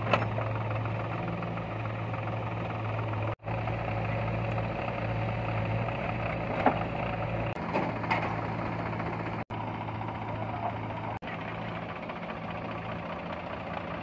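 Tractor diesel engine idling steadily, with a few short sharp knocks on top.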